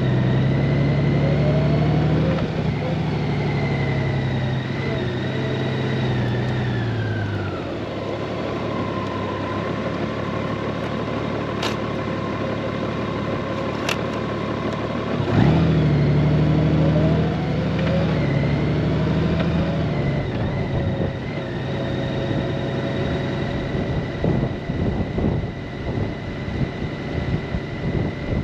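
Honda Gold Wing motorcycle under way, engine running with wind and road noise. Its note falls away about a quarter of the way in as it slows, then comes back suddenly and rises a little past halfway as it accelerates. Gusty wind buffets the microphone near the end.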